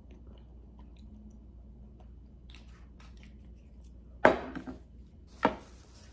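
Quiet chewing and small clicks, then two sharp knocks on a table about a second apart, the first and louder one as a glass hot-sauce bottle is set down.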